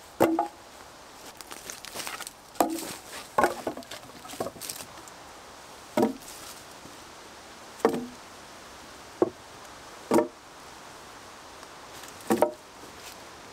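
Short lengths of dead wood knocking against each other and the log frame as they are laid across a raised bushcraft bed: about nine sharp wooden knocks, one every second or two.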